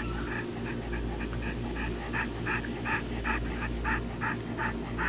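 A dog panting in quick, even breaths, about three a second.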